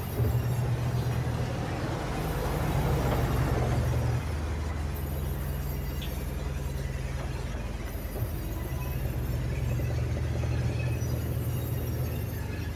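Large industrial band saw running and slicing a teak log lengthwise: a steady low motor hum with the noise of the blade in the wood, louder for the first few seconds and again near the end.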